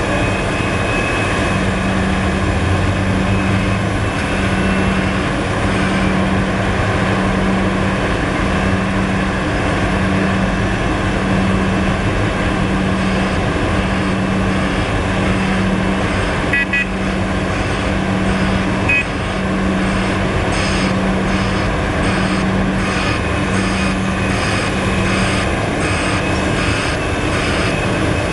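Liebherr R974 hydraulic excavator running under load, its diesel engine and hydraulics working hard as it digs and swings a bucket of earth over a dump truck. A low pulsing repeats about once a second through most of it, with a couple of short clanks about two-thirds of the way in.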